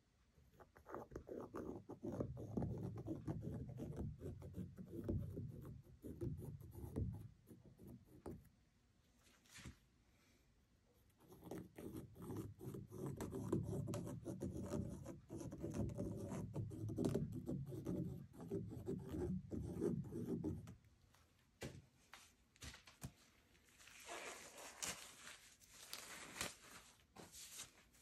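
Rubbing and scraping from a gloved hand working a wooden stick over a wet, paint-covered stretched canvas. It comes in two long stretches with a pause between, then a softer, higher rustle near the end.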